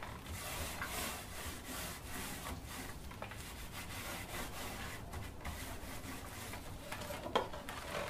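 Small paint roller loaded with paint being worked over the inside of a polystyrene beehive box: a faint, continuous rubbing with scattered light knocks.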